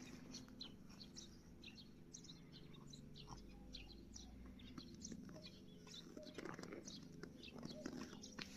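Faint, scattered chirping of small birds over a low steady hum.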